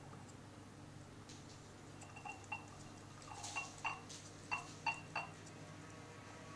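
A cut-glass bowl clinking and ringing as a cat eats dry kibble from it, its teeth and the food tapping against the glass. A few soft clinks about two seconds in, then a run of about half a dozen sharper, ringing clinks in the middle.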